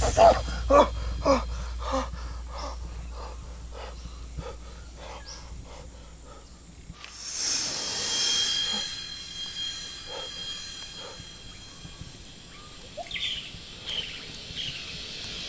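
A run of short pitched sounds repeating every quarter to half second and fading away over the first several seconds, then a steady wash of jungle ambience from about seven seconds, with a few short high chirps near the end.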